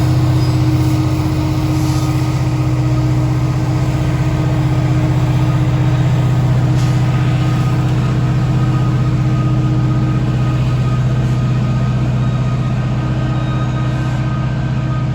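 Heavy diesel engine, most likely a locomotive's, running at a steady speed: a loud, unchanging low drone.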